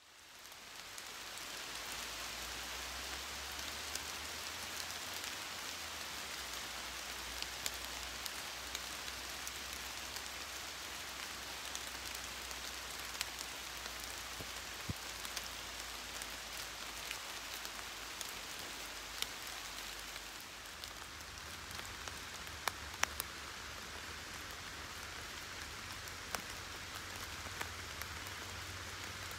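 Steady rain falling, with many single drops ticking close by. It fades in over the first couple of seconds.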